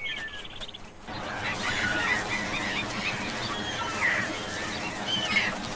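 A flock of wild geese calling, with many short honks and calls overlapping, starting about a second in.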